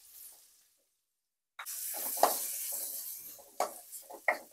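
Sliced onions sizzling in hot butter and oil in a metal pan. The sizzle starts abruptly about a second and a half in, after a short silence. Near the end a wooden spatula scrapes and knocks against the pan in short strokes as the onions are stirred.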